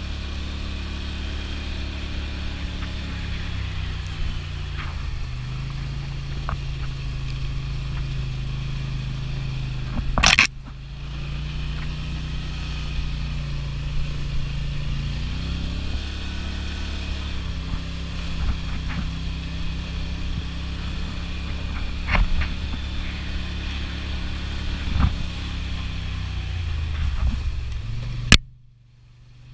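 Polaris Sportsman 850 XP ATV engine running under way on a dirt trail, its pitch rising and falling with the throttle. A loud knock comes about ten seconds in, with a few lighter knocks later. A sharp knock near the end is followed by the sound dropping away suddenly.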